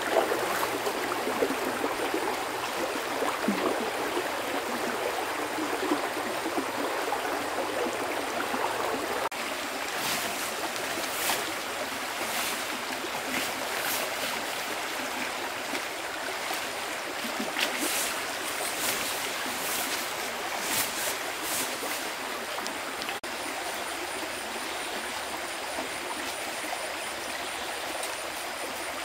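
A stream flowing steadily, a constant rush of running water, with a scatter of short, high-pitched ticks through the middle.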